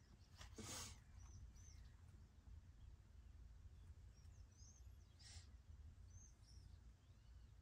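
Faint bird chirps, a string of short arching calls, over a low steady rumble. Two brief soft hisses come about half a second in and about five seconds in.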